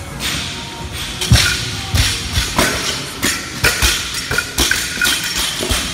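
Irregular thuds and clatter of barbells with rubber bumper plates being dropped and handled on rubber gym flooring, the loudest thud about a second and a half in, over music playing in the background.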